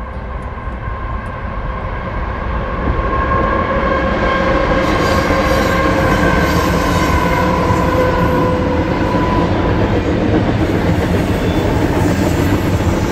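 A CSX diesel locomotive leading an intermodal freight train passes close by, followed by double-stacked container cars rolling on the rails with a steady heavy rumble. The sound builds over the first three seconds as the train arrives, and a steady whine carries through the middle of the pass.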